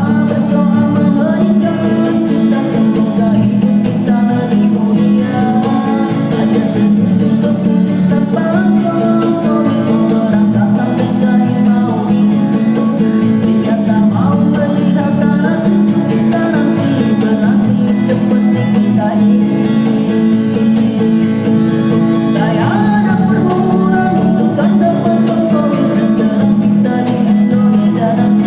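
A man singing a song with a dry, unprocessed voice and no added effects, over steady guitar accompaniment.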